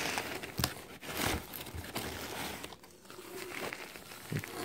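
Paper crinkling and rustling as a disposable heat pack and packing paper are handled, with a few soft knocks.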